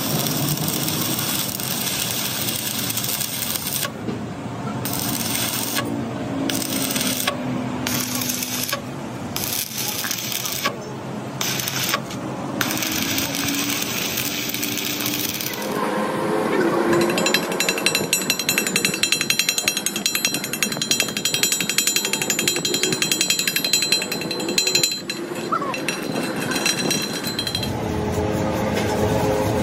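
Loud workshop power-tool noise. For about the second half it becomes a fast, even hammering rattle like a pneumatic hammer, which stops near the end.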